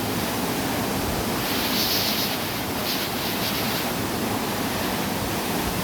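Waterfall pouring into its pool: a steady, full rushing of falling water.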